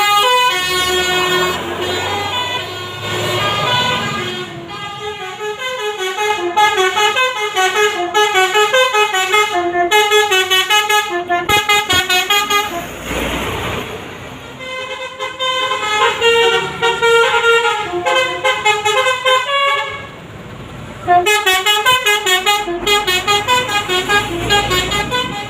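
Basuri telolet multi-tone horn playing a fast melody of stepped notes, loud throughout. A short hiss comes about thirteen seconds in, and a brief pause comes about twenty seconds in before the tune resumes.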